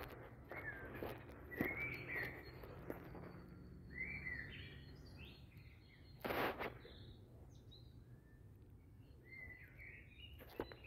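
Small birds singing short warbling phrases in spring woodland, with one louder footstep on the path about six seconds in.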